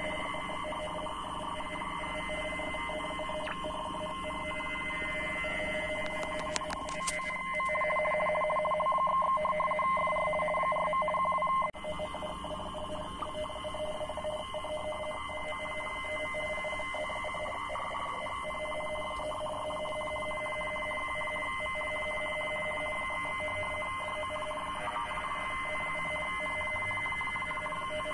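Deutscher Wetterdienst RTTY weather broadcast on a shortwave receiver: a radio teleprinter signal switching between two steady tones, with a background hiss, while it sends a marine weather report. It gets louder about a quarter of the way in and drops back suddenly around the middle.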